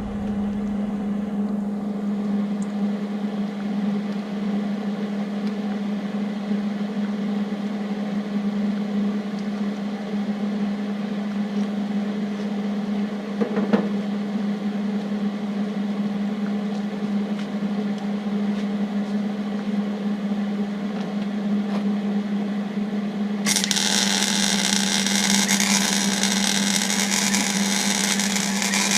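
A steady machine hum runs throughout. About 23 seconds in, a loud, harsh hissing from a metalworking tool starts up over it and keeps going.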